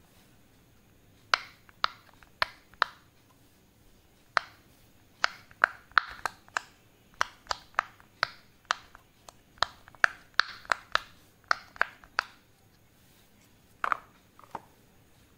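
Bubbles of a silicone pop-it fidget toy being pressed in by a finger one after another: about two dozen sharp little pops at an irregular pace, starting about a second in and thinning to a last couple near the end.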